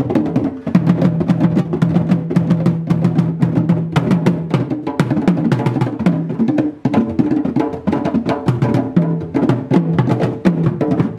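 West African drum ensemble playing a fast, dense rhythm of hand and stick strikes on barrel drums.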